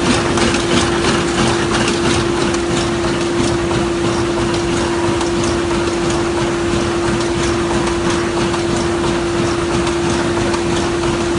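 Smyth Freccia 150 L book-sewing machine running: a steady hum under a fast mechanical clatter.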